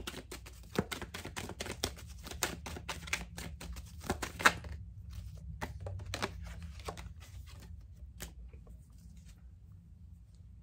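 Deck of tarot cards being shuffled: a rapid run of card clicks for about the first five seconds, then scattered clicks that thin out and stop.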